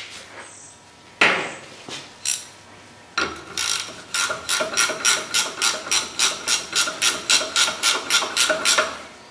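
Ratchet wrench clicking as it is swung back and forth to run a 1-1/16 inch castle nut off a tie rod end, about three strokes a second, after a few separate metal knocks in the first seconds.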